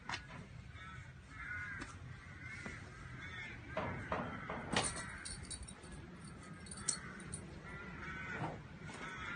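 Birds calling over and over, a short harsh call repeated every second or so, with a few sharp clicks and knocks, the loudest about five seconds in.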